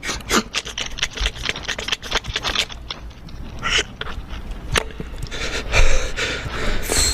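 Quick sharp clicks and scrapes, about four or five a second for the first few seconds, then sparser clicks and scratching, with a hiss rising near the end: the sound of a needle picking and scraping at a dalgona sugar candy.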